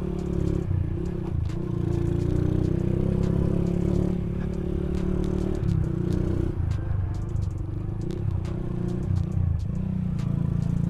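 Motorcycle engine and exhaust running steadily at riding speed, with frequent short clicks and rattles from the bike over a rough, potholed road surface.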